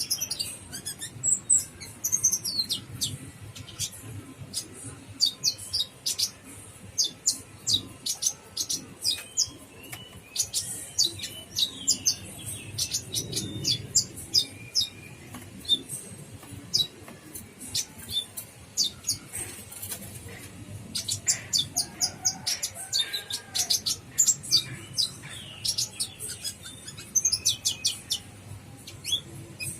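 Sunbird (kolibri ninja) singing: runs of rapid, sharp, high-pitched chirps and twitters, one burst after another with short pauses.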